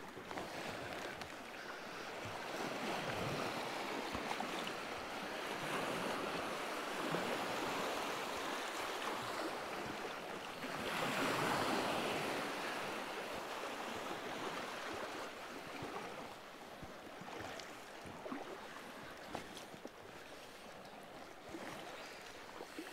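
Small waves and surf washing over a shallow, stony sea shore, swelling and easing in turn, loudest a little before halfway through.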